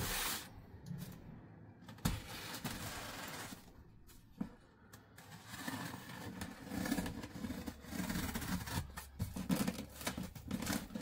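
Scissors scraping and slicing along the packing tape of a cardboard box, in short irregular strokes with small knocks and rustles of the cardboard.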